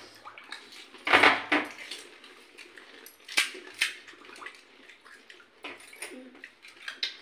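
Eating gupchup (pani puri): crisp puri shells cracked open with fingers and crunched, with light clinks of steel plates and bowls. There is a louder eating noise about a second in and a couple of sharp clicks a little after three seconds.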